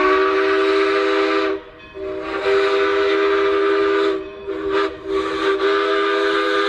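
Multi-chime steam locomotive whistle blowing a chord in long blasts, broken by short gaps and a couple of short toots a little past halfway, with steam hissing through the tone.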